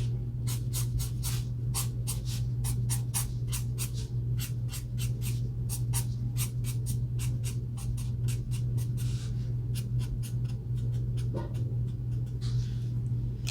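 Ohuhu alcohol marker tip flicking quick, short strokes across paper, about three a second, with a couple of brief pauses near the end, over a steady low hum.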